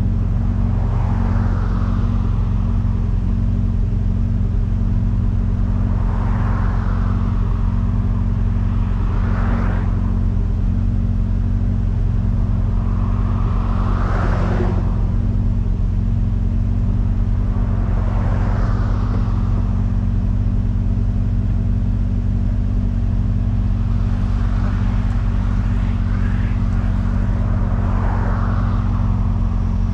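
Steady engine and road drone of a car being driven, with other vehicles whooshing past several times, each swelling and fading within a second or two.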